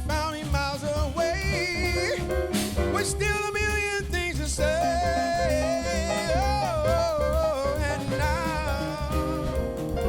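Live jazz band (horns, keyboard, bass and drum kit) playing a Brazilian-jazz number, a bending, wavering lead melody line over a steady rhythm section.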